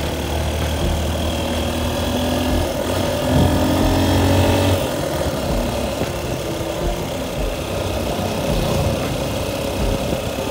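Motorcycle engine running steadily while riding along the road, heard from on the bike. The engine note rises a little about three seconds in, then eases off about halfway through.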